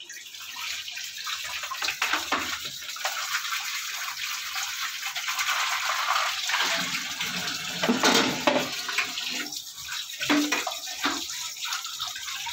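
Water running from a wall tap and splashing into a plastic basin as dishes are rinsed under it. The stream is louder for a while around the middle.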